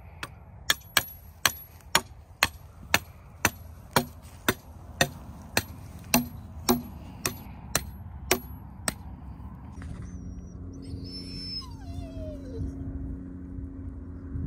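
Hammer striking steel rebar stakes, driving them into the ground to hold wooden form boards: sharp ringing blows about two a second, stopping about nine seconds in.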